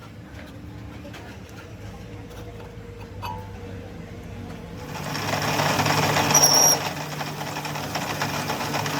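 A quiet workshop hum with a few light ticks, then about five seconds in a workshop machine's motor starts and runs steadily and loudly, with a brief high squeal just after.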